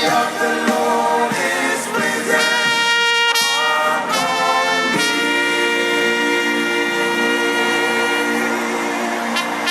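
Music with long, held trumpet-like brass notes, after a shorter run of changing notes at the start.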